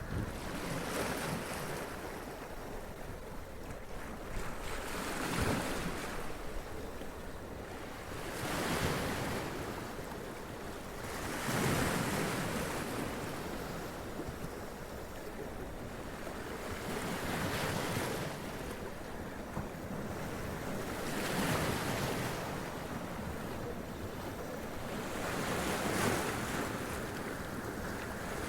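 Sea waves running up onto rocks and splashing, a surge every few seconds over a steady hiss of surf.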